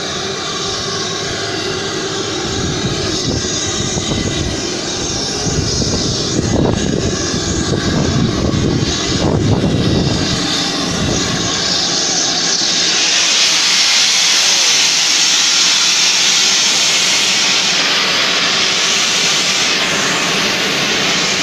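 Steam locomotive standing at the platform, with a steady rushing noise from the engine; about twelve seconds in, a loud, even hiss of escaping steam takes over and holds.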